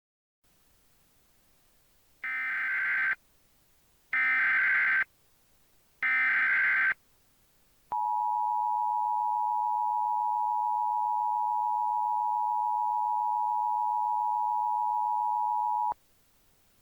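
Emergency Alert System opening: three short raspy data bursts of the digital SAME header, about a second apart, then the steady two-tone EAS attention signal held for about eight seconds before it cuts off.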